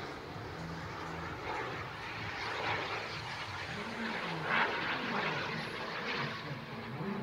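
Turbine engine of a large scale RC jet in Red Arrows livery flying past: a steady jet rush that swells and fades several times, loudest about four and a half seconds in.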